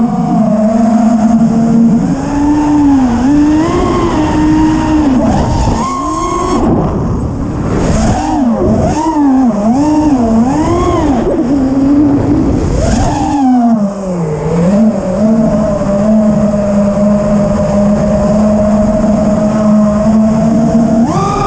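FPV freestyle quadcopter's brushless motors whining, their pitch swooping up and down with each throttle change, then holding one steady pitch for the last six seconds or so. It is the motor sound the pilot offers as the sign of a successful tune on the new flight controller.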